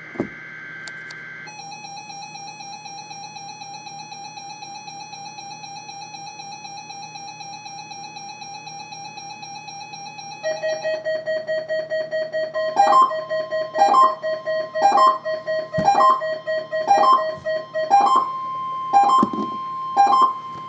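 Weather alert radios sounding their alarms for a NOAA Weather Radio Required Weekly Test, after a brief burst of data tones at the very start. A steady, rapidly pulsing alert tone is joined about ten seconds in by a second, lower pulsing tone, and then by a beep about once a second.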